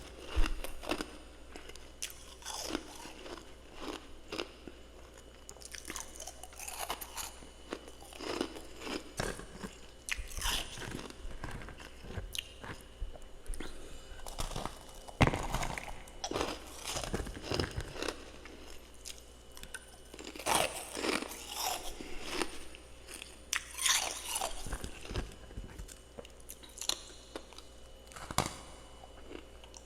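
Close-up chewing and crunching of powdery freezer frost, irregular bites and crunches, louder clusters coming every few seconds.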